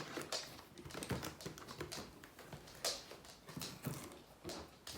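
Packaging being handled during an unboxing: a quick, irregular run of small clicks, taps and rustles.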